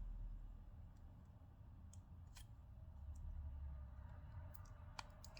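A few faint, sharp clicks of flex-cable connectors being pressed onto their sockets on a Samsung Galaxy A52s motherboard during reassembly, over a steady low hum.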